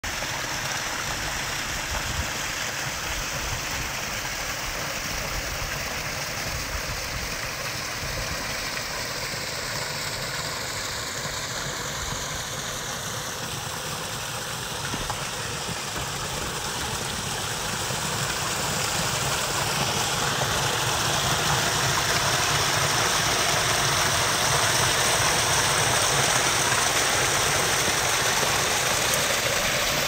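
Water splashing and trickling over the boulders of a rock waterfall and stream, growing louder a little past halfway through, with an engine idling steadily underneath.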